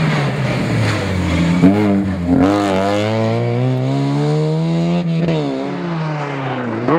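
Rally car engine accelerating hard, with quick breaks in the note as it shifts up early on, then a long climb in pitch. About five seconds in the pitch drops away and stays lower to the end.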